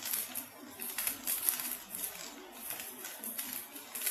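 Rice vermicelli frying in a wok: a steady sizzle with many small, irregular crackles.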